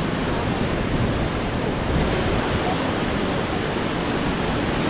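Steady, loud rush of falling water from a waterfall.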